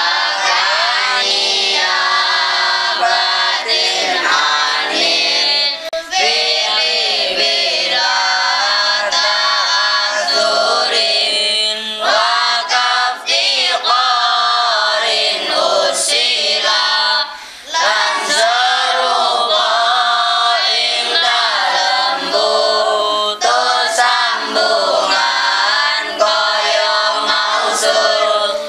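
A class of boys chanting together in unison: a sung group recitation that carries on with only brief breaks between phrases.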